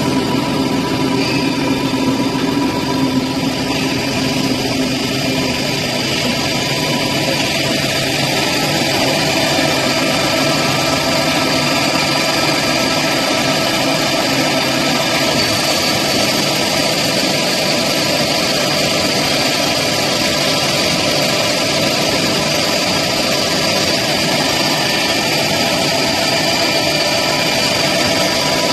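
Deburring machine for thick steel plate running steadily: a continuous machine noise with several steady whining tones.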